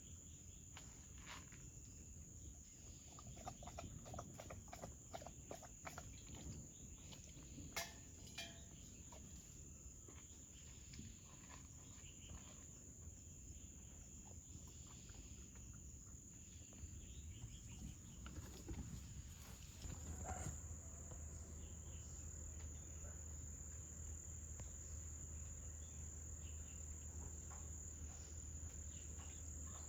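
A steady, high-pitched insect trill, like crickets, runs throughout, with scattered faint clicks and rustles. A low hum comes in about two-thirds of the way through.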